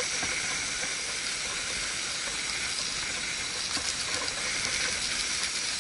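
Steady hiss of a lit backpacking stove burning under a pot of boiling water, with wind blowing across it.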